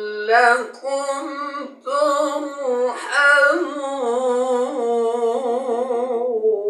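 A qari's voice chanting Quran recitation, drawing 'la'allakum turhamun' out into long, ornamented held notes, with a brief break about two seconds in.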